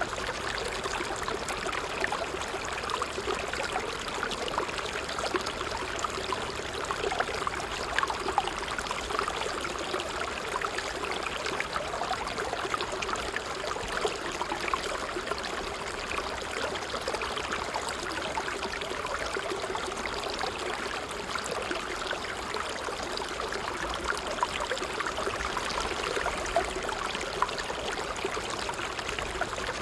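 Water trickling and splashing steadily, a medium trickle of small splashes and droplets with no pauses.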